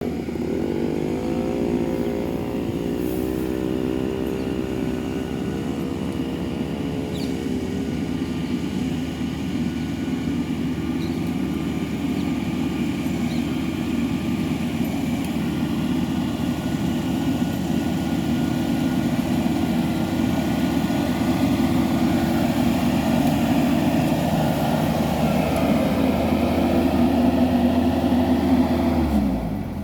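World rice combine harvester's engine running steadily under load, with a wavering pitch in the first few seconds. The pitch falls sharply right at the end.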